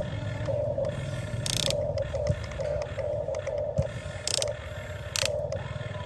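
Huina 1550 RC excavator's small electric motors and gearboxes whirring in short on-off bursts as its functions are worked, with a few sharp clacks.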